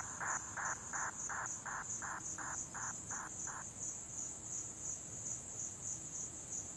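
Night insects chirping: a steady high, fast-pulsing cricket trill, joined by a lower call repeating about three times a second that stops about three and a half seconds in.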